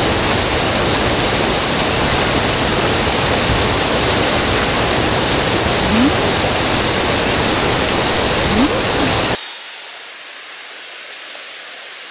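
Mountain valley stream rushing in a steady, loud wash of water. About nine seconds in it cuts off abruptly, leaving a fainter, thinner hiss.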